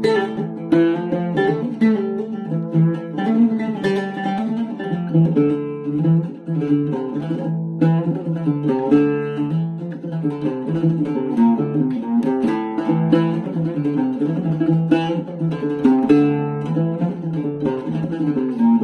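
Oud playing an instrumental passage of quick plucked melody notes over a repeated low note.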